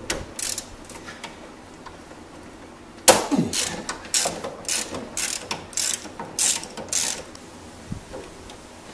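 Hand ratchet (3/8-inch drive, turning a 17 mm socket through extensions and a universal joint) clicking as it backs out an engine-mount bolt. A few clicks right at the start, then from about three seconds in a run of ratcheting strokes, about two a second.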